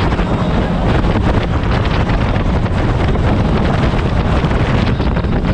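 Speedboat running at high speed: wind buffeting the microphone over the hiss and slap of spray thrown off the hull, with the engine drone underneath, loud and steady.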